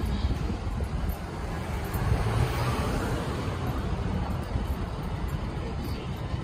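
City street traffic: cars running and moving through an intersection, a steady low rumble that swells as a vehicle passes close about two to three seconds in.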